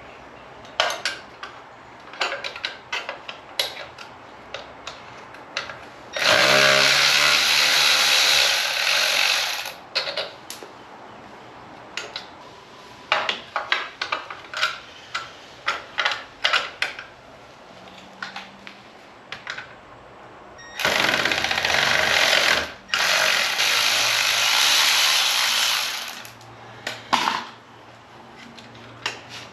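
A power tool, such as a cordless impact wrench or drill, runs twice while frame bolts are being loosened: once for about three and a half seconds and once for about five seconds with a short break. Between the runs come many short metal clicks and clanks of tools and bolts.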